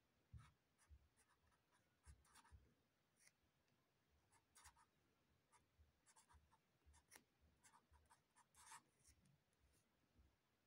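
Blue felt-tip marker scratching faintly on a paper card as capital letters are written, in short irregular strokes with soft taps of the pen tip.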